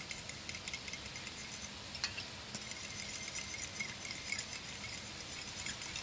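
A metal fork whisking a thin soy-based sauce in a small glass bowl, the tines clicking lightly and quickly against the glass. A faint steady sizzle of chicken frying in a pan runs underneath.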